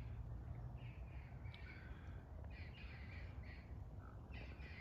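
Faint birds calling: a series of short calls, several in close succession from about a second and a half in, over a low steady outdoor rumble.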